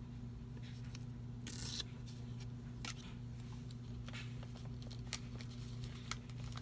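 Washi tape being trimmed against the edge of a plastic gift card: one short rasping tear about one and a half seconds in. Scattered light taps and clicks of paper and card being handled follow, over a steady low hum.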